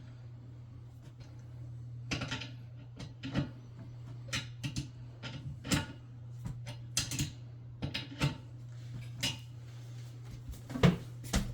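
Irregular clicks, taps and knocks of hand tools and toilet tank hardware (bolts, nuts, washers) being handled and tightened, a sharper knock near the end, over a steady low hum.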